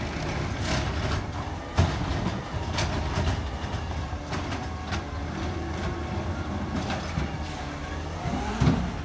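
Side-loading garbage truck (Crane Carrier LET2 with McNeilus ZR body) running its diesel engine with a steady low hum as it creeps toward the curb, with sharp metallic knocks from the truck about two and three seconds in and again near the end.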